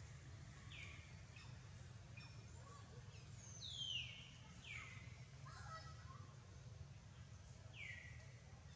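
Four short, faint whistled calls, each sliding down in pitch, from a bird; the loudest comes about four seconds in. A steady low hum of background noise runs underneath.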